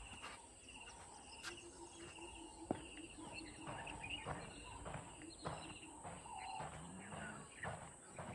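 Faint natural ambience of birds and insects: scattered short bird whistles and calls over evenly repeated insect chirping and a steady high insect tone, with a low rapid pulsing call in the first half.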